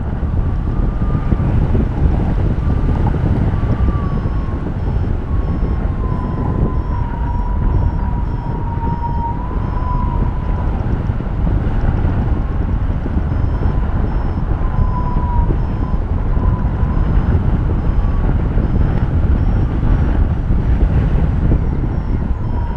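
Airflow rushing over the camera microphone of a paraglider in flight, with a faint whistle wavering in pitch. A faint, fast, high beeping comes and goes twice, typical of a variometer signalling climb in a thermal.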